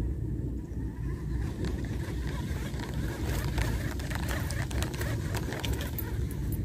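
Wind rumbling on the microphone, with light scattered clicks and rustles starting about a second and a half in.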